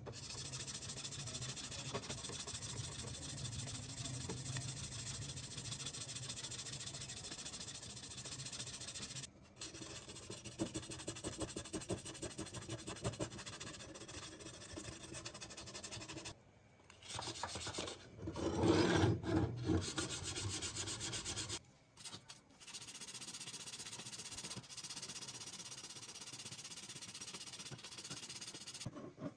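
Sandpaper rubbed by hand on the steel parts of a TT-30 pistol in rapid back-and-forth strokes, stopping briefly a few times. It is loudest about two-thirds of the way through.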